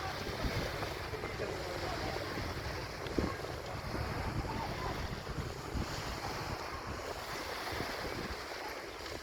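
Wind buffeting the microphone over the rush of sea water, with a brief knock about three seconds in.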